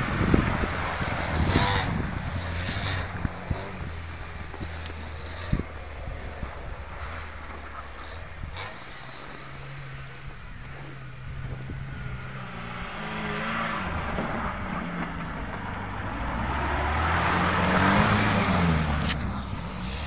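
Lada Niva off-roader's engine running under load as it drives through deep snow, revving up and down several times and growing louder toward the end.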